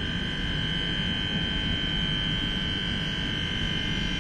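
SNCF BB 27300 electric locomotive idling under power, its electrical equipment giving a steady high whine over a low rumble.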